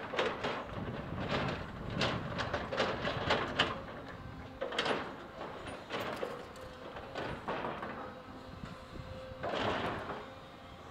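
Komatsu crawler excavator's bucket working a pile of broken concrete: rubble clattering and scraping against the steel bucket in a run of knocks, busiest in the first four seconds and again near the end, over the steady running of the machine.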